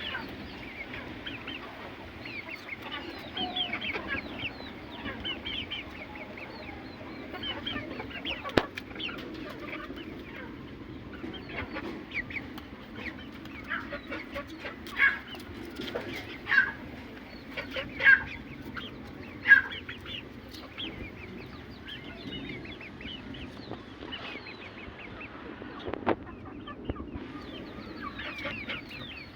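Aseel chickens clucking, many short calls overlapping, with several louder calls in the middle and a couple of sharp clicks.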